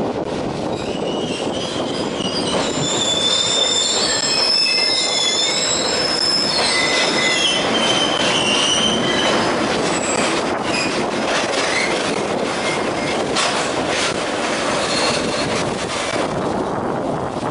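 Container freight train arriving and braking, its wheels squealing in several high shrill tones over the steady rumble of the wagons for the first ten seconds or so. After that the squeal gives way to a run of scattered clanks and knocks as the train slows.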